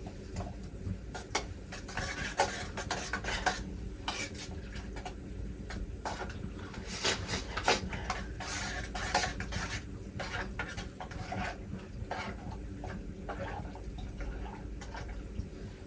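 Metal spoon stirring and scraping in a cooking pot, with irregular clinks and scrapes.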